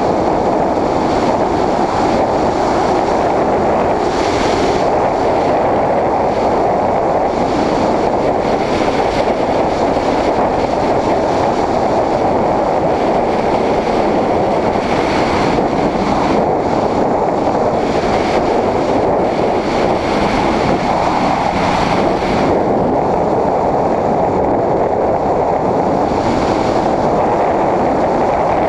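Steady rush of wind and road noise on a GoPro's microphone from a Honda CBR600RR sport bike cruising at speed, with no clear engine note standing out of it.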